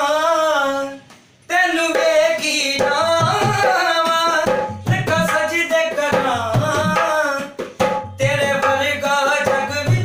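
Man singing a qawwali-style devotional song to a newly made dholak, played to check its tone. The voice breaks off briefly about a second in, and the dholak's deep bass strokes join with a steady beat from about three seconds in.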